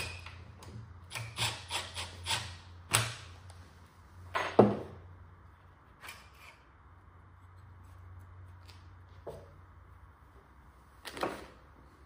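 Parts of an Agras T40 spray drone's arm lock mechanism clicking, knocking and rubbing as they are handled and worked loose by hand. There is a quick run of knocks in the first few seconds, the loudest about four and a half seconds in, then only a few scattered clicks.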